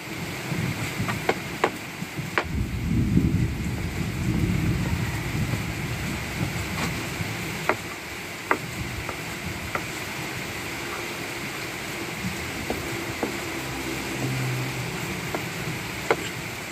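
Knife chopping raw meat on a wooden cutting board: scattered sharp knocks of the blade striking the board, a few in the first few seconds and then more spaced out, over a steady low rumble.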